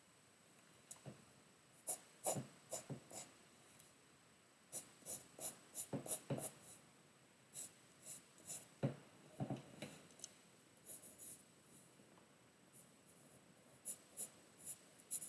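Irregular, scratchy strokes of a pen or pencil on paper as the outline of a drawing is traced, in short bursts with pauses between.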